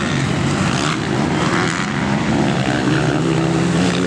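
Motocross motorcycle engines running hard as bikes race down a dirt hill. The engine note shifts up and down with the throttle and steadies near the end.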